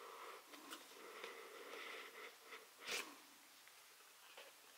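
Cardboard tarot deck box being opened by hand: the lid slides off the base with a soft rubbing scrape, then a single sharp tap about three seconds in.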